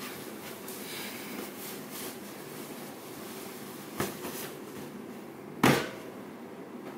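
A dark fabric bag being handled and set down on a carpeted floor: a sharp knock about four seconds in and a louder thump shortly before the end, over steady room noise.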